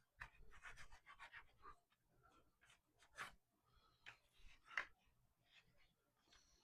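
Faint, irregular scraping and rubbing strokes of hand work on a holster, with one sharper stroke about three-quarters of the way through.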